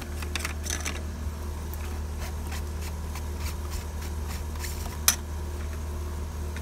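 Hands unscrewing the plastic union nuts and working an old Pentair IntelliChlor salt cell loose from its PVC plumbing: scattered light plastic clicks and scrapes, with one sharper click about five seconds in, over a steady low hum.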